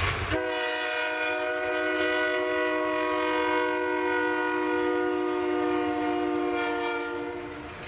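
Diesel locomotive's multi-chime air horn sounding one long, steady blast of several notes at once, which eases off near the end, over the low rumble of the train.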